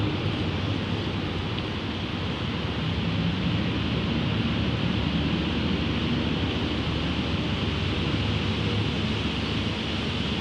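Steady city background noise: a low, constant rumble with an even hiss over it and no distinct events.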